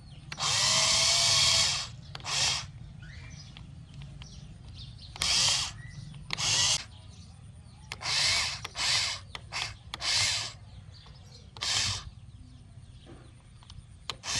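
Small electric motors of a remote-controlled toy mini excavator whirring in about ten short, irregular bursts as its movements are worked from the remote, over a steady low hum.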